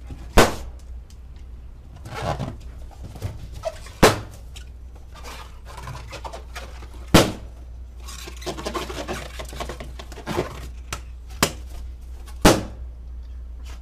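Latex party balloons bursting as a dog bites them: a string of sharp pops, four loud ones spread a few seconds apart with a few fainter pops in between.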